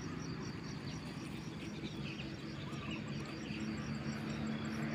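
Field ambience of insects chirping: a high-pitched, evenly spaced pulsing that keeps on steadily, over a low steady hum.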